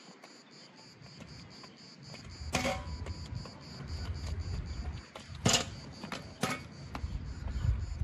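Insects chirping steadily in a fast pulsing rhythm, with three sharp knocks about two and a half, five and a half and six and a half seconds in.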